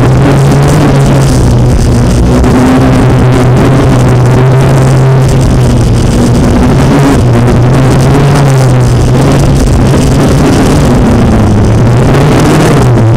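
FPV racing drone's brushless motors buzzing loudly and steadily, the pitch rising and falling as the throttle changes.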